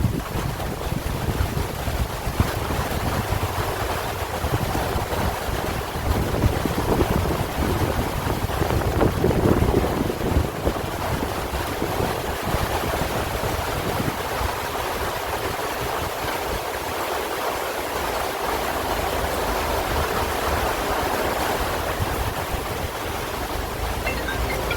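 Steady heavy rain falling, a continuous even hiss of rainfall with no breaks.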